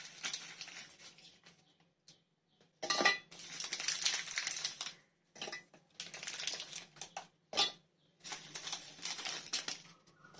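Bourbon biscuits dropped by hand into a stainless steel mixer-grinder jar, clattering and clicking against the steel walls and blade in several short spells with pauses between them.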